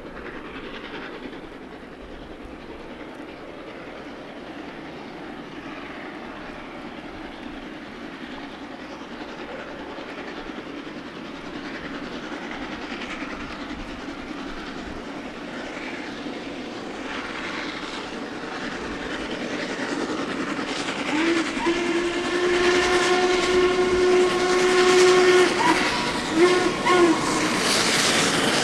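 N&W No. 1218, a Class A 2-6-6-4 articulated steam locomotive, working hard under the load of a 100-car coal train. Its exhaust beats grow steadily louder as it approaches. About 21 seconds in it sounds its hooter steam whistle: one long blast and then a short one.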